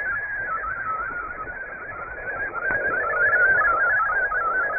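MFSK32 digital text transmission received over shortwave: a rapid, warbling run of short tones hopping up and down in pitch, over a bed of shortwave static. The signal fades a little about two seconds in, then comes back up.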